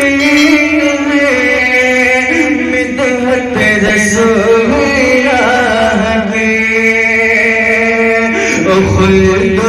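Man singing a naat into a microphone over a PA, drawing out long melodic notes that slide between pitches.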